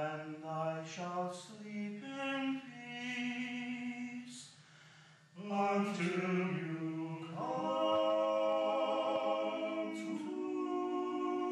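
Slow singing without instruments: a melody on long held notes, with a short break about five seconds in.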